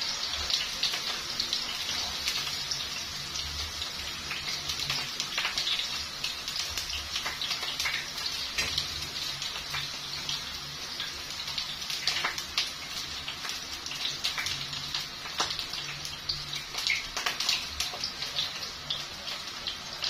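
Potato chips deep-frying in hot oil in a wok: a steady sizzle with scattered crackles.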